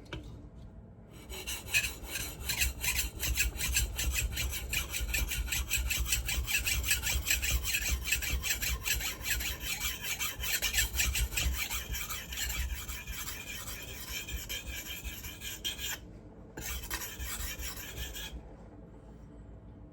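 Steel knife blade being stroked back and forth on a wetted 1000-grit diamond sharpening stone, a steady rhythmic scraping. The second side of a new Japanese knife's edge is being ground to raise a burr. The strokes stop for a moment about 16 seconds in, run briefly again, and stop about 18 seconds in.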